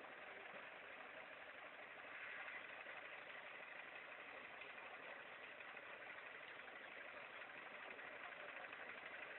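Faint, steady engine idling: the flatbed tow truck's engine running while parked by the ditch.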